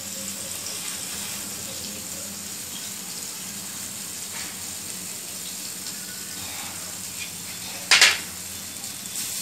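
Butter melting and sizzling in a tadka ladle over a gas flame, a steady hiss, with a sharp clatter about eight seconds in.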